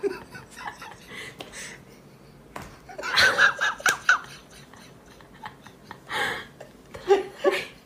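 A person giggling off-camera in a quick run of high, breathy bursts about three seconds in, with a few shorter chuckles near the end.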